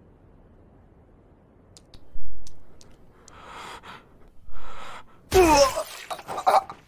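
Anime fight sound effects: a low thud about two seconds in, then short sharp breaths and a sudden loud gasp-like burst just after five seconds.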